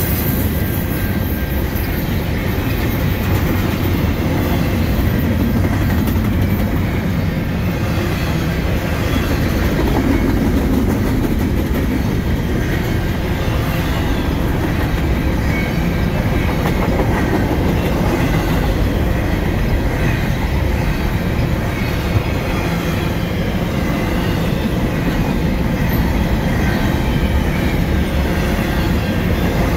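Double-stack container well cars of a freight train rolling past: a loud, steady rumble of steel wheels on the rails.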